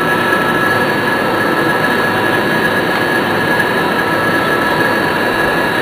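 Steady machine hum of a three-phase converter running, an even drone with several fixed high tones over it.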